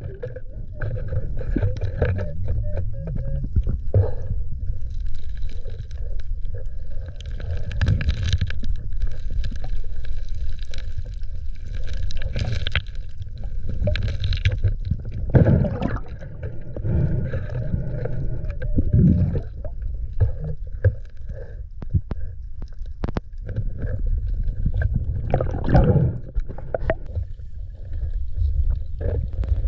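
Underwater sound near the seabed: a constant low rumble of moving water, with stones clicking and scraping as a hand digs through the rocky bottom, and several louder surges of water noise.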